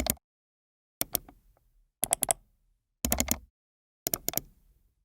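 Sound effect of rapid sharp clicks or taps in short bursts of two to four, one burst every second, five times, with dead silence between.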